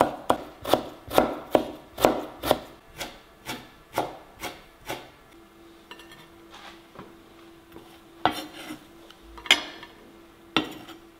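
Chef's knife chopping kaffir lime leaves on a wooden cutting board, about two even strokes a second, for roughly the first five seconds. After that come softer rubbing and a few scattered sharp knocks, as chopped lemongrass and shallots are handled on a ceramic plate, over a faint steady hum.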